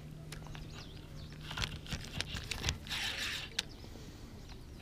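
Faint clicks and rustling from hands handling a freshly caught small bream and the feeder tackle, with a brief louder rustle about three seconds in, over a steady low hum.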